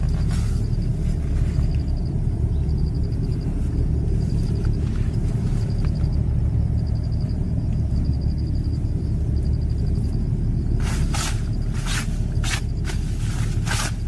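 Steady low rumble with a faint, high, pulsing chirp that comes in short repeated trains. From about eleven seconds in, a quick run of sharp crunching or scraping noises.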